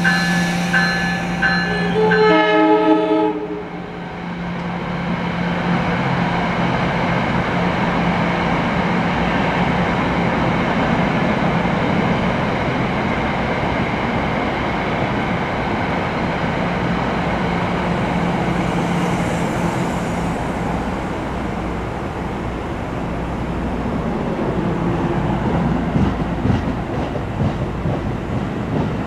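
NJ Transit push-pull train of double-deck coaches pulling out of the station and rolling past, a steady rumble of wheels on rail with a low electric hum. At the start, a repeating electronic tone and a quick run of tones falling in pitch.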